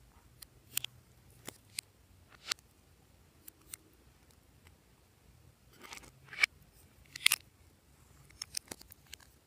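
Metal scissors snipping the tips off lipsticks, with short sharp clicks from handling the plastic lipstick tubes and caps. The clicks come one at a time, scattered, with the loudest few a little past the middle.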